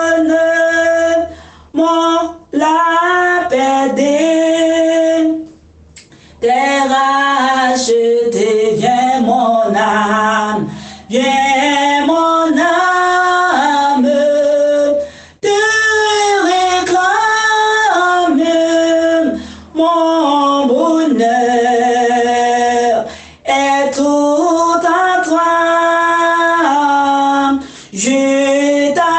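A woman singing a hymn in long held phrases, with short breaks for breath between them.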